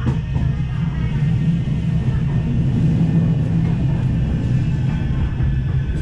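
Manchester Metrolink M5000 tram running along the track, heard from inside: a steady low rumble of wheels on rail with a faint steady whine over it, and a single sharp knock at the very start.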